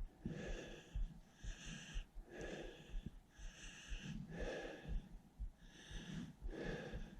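A man breathing heavily and rhythmically close to the microphone, about one breath a second, as he stalks through brush toward a shot bear, with soft low thumps between the breaths.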